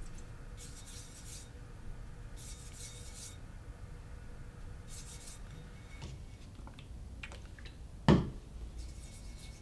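Knife blade being stroked across a wet 600-grit whetstone, three separate gritty scraping strokes, the last one short. A single sharp knock sounds about eight seconds in.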